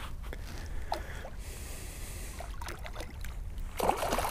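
Water around a small fishing boat over a low wind rumble on the microphone, with a few light knocks and a louder, splashier patch near the end.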